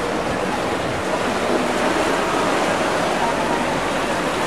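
Steady rushing noise with faint voices in the distance.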